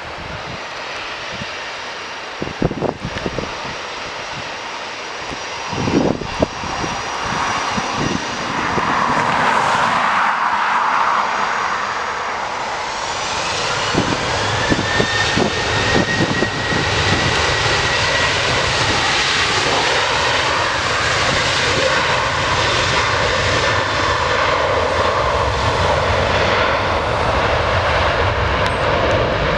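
Boeing 737-800 jet engines spooling up to take-off thrust: a rising whine about twelve seconds in, then steady, loud jet noise as the airliner accelerates down the runway. Early on, a few low thumps of gusty wind hit the microphone.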